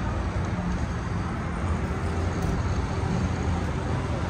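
A steady low rumble with a faint hum running through it.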